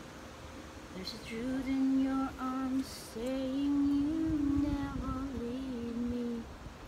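A woman's voice singing softly to herself, a slow wordless tune on long held notes. A short rustle comes about three seconds in.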